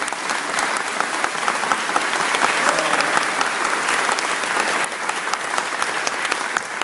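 Audience applauding: steady, dense clapping from a roomful of people, thinning a little near the end.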